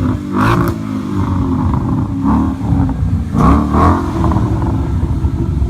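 2016 Mustang GT's V8 engine revved through a Magnaflow Street Series exhaust: short throttle blips, the clearest about half a second in and again about three and a half seconds in, each dropping back to idle between.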